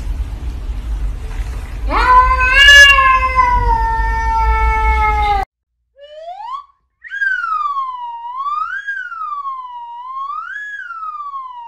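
A cat's long, drawn-out meow, rising sharply and then sliding slowly down over a low hum, cut off about halfway through. It is followed by a clean wailing tone that rises and falls smoothly about every two seconds.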